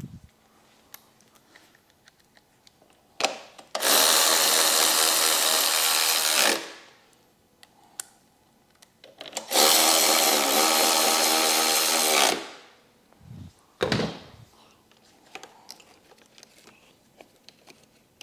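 Cordless power driver running in two bursts of about three seconds each, with a few short knocks between.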